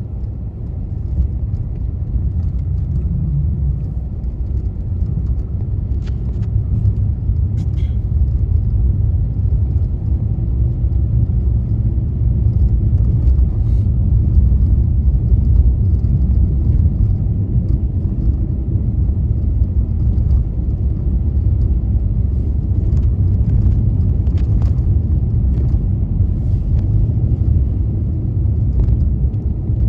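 Car driving on a snow-covered road: a steady low rumble of tyres and engine, with faint scattered clicks.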